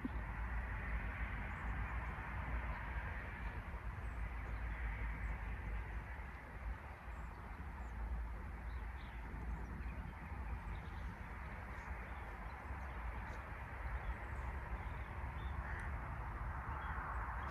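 Steady outdoor background noise with crows cawing now and then.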